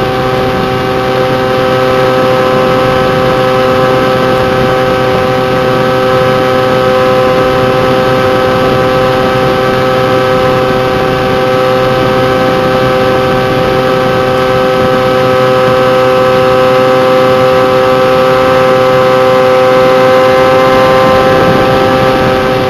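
Electric motor and pusher propeller of a Bixler RC foam plane in flight, running with a steady multi-tone whine, picked up by a wing-mounted camera.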